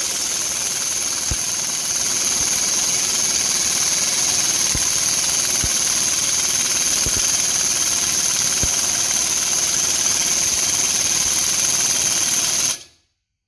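Snap-on 750 ft-lb pneumatic impact gun, fed at 165 psi, hammering continuously on a puller to force a rust-seized cylinder barrel off its piston on a Subaru 360 two-stroke engine. It runs steadily without pause and cuts off abruptly near the end.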